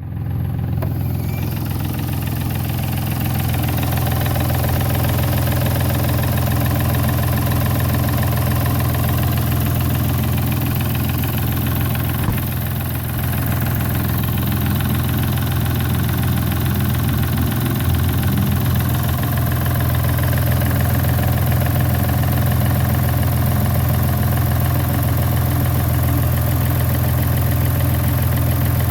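Peugeot 607's 3.0 V6 engine idling steadily while cold, with a dull metallic knock in the engine that the owner puts down to the hydraulic lifters or camshafts.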